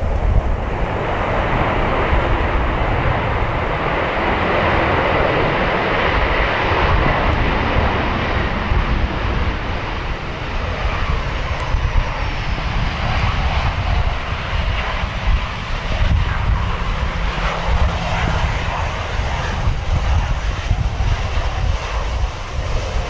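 Airliner engines at an airport running as a steady roar that swells over the first few seconds, with strong typhoon wind buffeting the microphone underneath.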